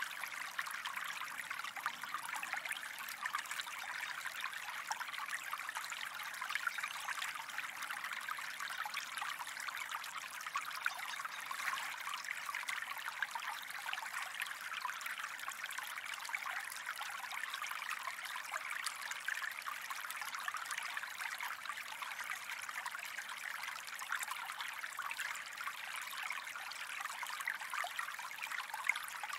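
Gentle stream flowing and trickling steadily, made of many small bubbling splashes.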